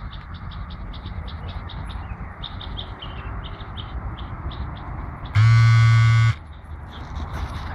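Steady rhythmic high chirping, about three to four chirps a second. About five seconds in, a loud, steady, low buzzing tone starts suddenly, lasts about a second and cuts off.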